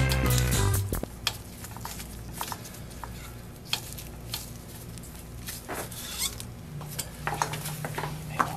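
Background music that cuts off about a second in, followed by scattered small metallic clicks and taps of a hex key working the clamp bolt of a bicycle's front derailleur.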